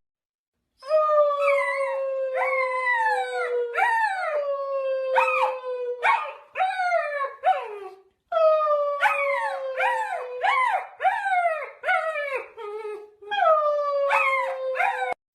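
A dog howling: long, steady howls overlaid with short rising-then-falling yelps. The sound breaks off briefly twice, about 8 and 13 seconds in.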